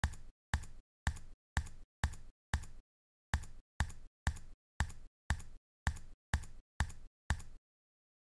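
Typing sound effect: a single keystroke click for each letter, about two a second. It stops shortly before the end.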